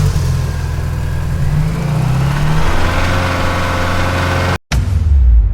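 Mazda rotary engine running with a steady low hum, its revs rising and falling briefly about two seconds in. The sound cuts out for a split second near the end and then carries on.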